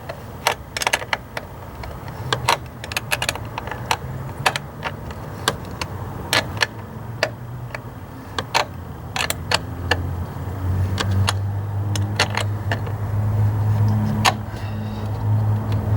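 Sharp, irregular metallic clicks of a wrench working on a car battery's negative terminal clamp as it is tightened down. A low steady hum builds up over the second half.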